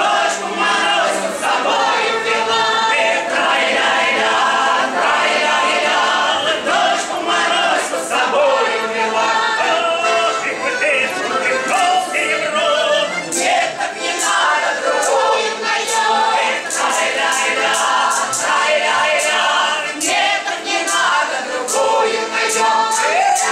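A choir singing a Russian folk song without accompaniment, several voices holding and bending notes together. About halfway through, sharp rhythmic clicks join in, keeping time.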